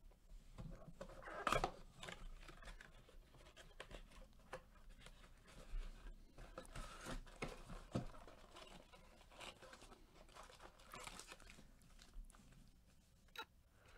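Cellophane shrink wrap and the cardboard of a trading-card blaster box being torn open and handled: irregular crinkling, rustling and tearing, with the loudest crackle about a second and a half in.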